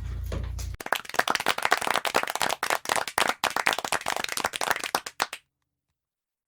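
Hands clapping quickly and densely for about four and a half seconds, starting abruptly under a second in and cutting off suddenly into silence.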